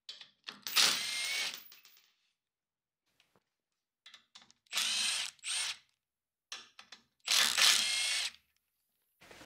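Milwaukee cordless impact driver with a T55 Torx bit hammering out the bolts that hold a Jeep Wrangler TJ's front bumper to the frame. It runs in three bursts of about a second each, the middle one broken in two, with light clicks between them.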